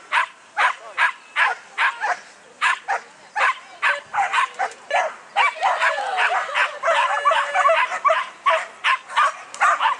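Flyball dogs barking in a rapid string, about two to three barks a second, the excited barking of dogs waiting to race. The barks come thicker and overlap over the second half.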